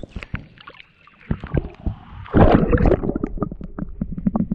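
A bass being released back into the water, with a few small knocks and splashes, then a loud splash about two seconds in. A run of quick small splashes follows.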